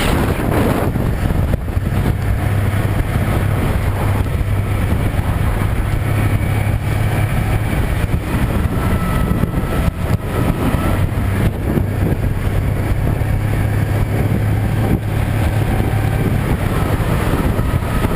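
Motorboat engine running steadily with a constant low hum, under loud wind noise on the microphone.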